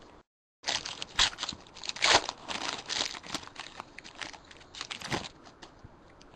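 Foil wrapper of a Bowman Draft baseball card pack being torn open and crinkled. A dense run of crackling that dies away about five seconds in, leaving faint handling clicks.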